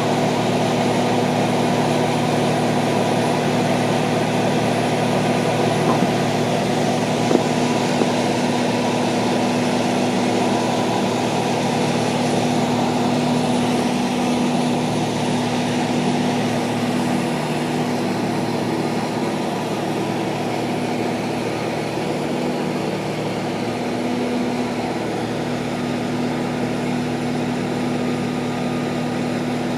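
An engine running steadily at a constant speed, a continuous even hum with a couple of faint ticks about six to eight seconds in.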